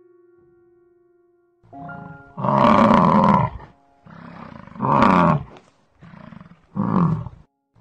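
A large animal gives a series of deep, roaring calls: three loud ones, each led in by a quieter call, the loud ones getting shorter. In the first second and a half a held musical note fades out.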